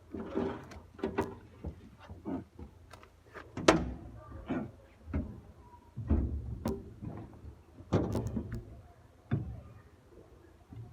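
Irregular knocks and clanks of tools and metal parts being handled, a dozen or so sharp strikes spread over several seconds, some ringing briefly.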